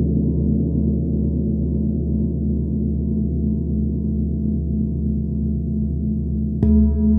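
A large hanging gong and brass singing bowls ring on together in a deep, sustained hum with a steady throbbing waver. Near the end a singing bowl is struck once with a padded mallet and rings out with a new set of clear tones.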